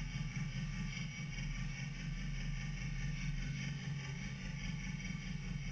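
Wilesco toy steam engine running steadily, its flywheel spinning, with a fast, even beat.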